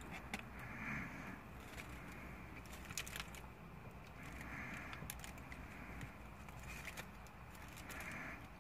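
Faint crinkling of a paper sandwich wrapper held in the hand, with a few small sharp crackles, alongside quiet chewing.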